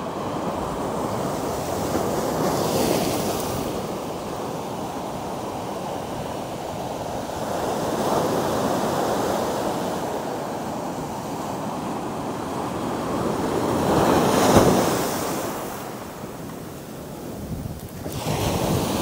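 Ocean surf breaking and washing up a sandy shore in a continuous wash that swells and ebbs, with surges about every five to six seconds. The strongest surge comes about three-quarters of the way through; it drops back, then builds again near the end as another wave breaks at the shoreline.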